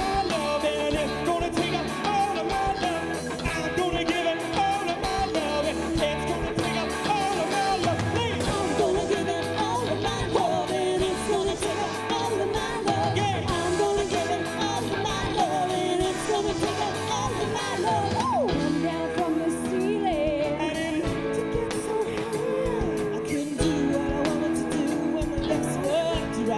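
Live rock band playing: drum kit, electric guitars and bass, with male and female vocalists singing over it.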